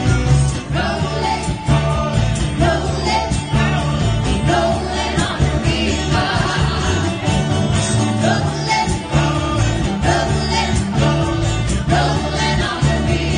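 Live band playing a pop-rock cover, with several women singing together into microphones over guitar, keyboard and drums.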